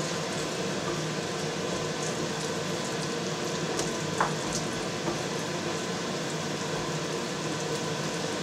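A thick tomato, sweet pepper and onion sauce frying in a pan while stirred with a wooden spatula, with a few light knocks of the spatula against the pan, the clearest about four seconds in.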